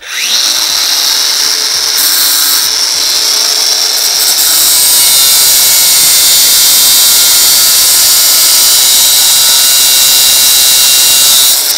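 Angle grinder cutting through a metal threaded rod: it starts abruptly and runs as a steady, loud, high grinding for about eleven seconds, stopping just before the end.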